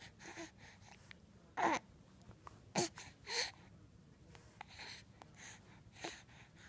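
An 11-week-old baby cooing: a few short breathy coos and gasps, the two loudest about one and a half and three seconds in, with small wet mouth clicks between.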